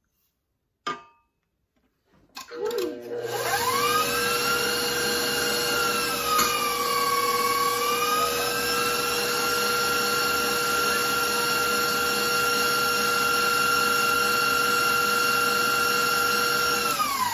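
Electric stand mixer starting up, its motor whine rising to speed as the wire whisk beats batter in a stainless steel bowl. The pitch dips briefly and recovers, holds steady, then falls away as the mixer is switched off near the end.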